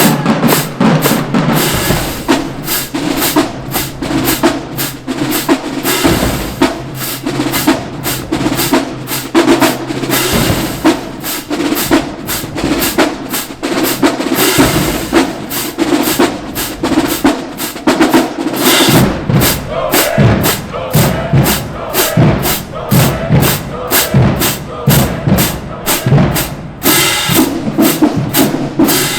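College marching band drumline playing a fast, steady cadence on snare and bass drums.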